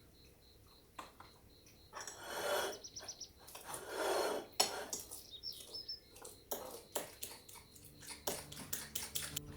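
Dishes and cutlery clinking and knocking as they are handled, with two longer rushing sounds about two and four seconds in and a quick run of clicks near the end.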